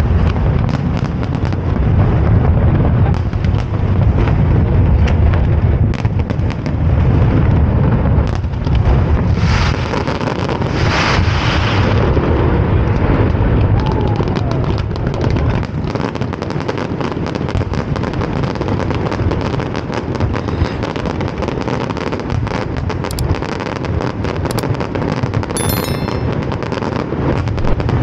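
Aerial fireworks display: a dense run of shell bursts and cracks over a continuous deep rumble, with louder, brighter crackling about ten to twelve seconds in.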